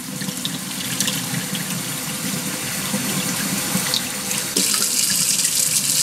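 Kitchen faucet running at full flow through a stainless steel mesh fuel filter, the water splashing into a stainless steel sink. About four and a half seconds in, the splashing turns louder and hissier as the bare stream falls straight into the sink.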